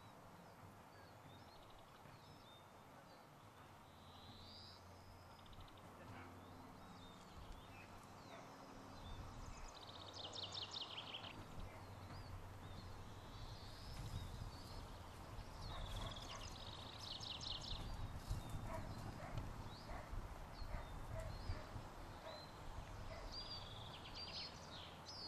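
Small birds singing, with short repeated trills and chirps, over faint outdoor background. From about a third of the way in come soft, irregular thuds of whippet puppies' paws galloping over turf.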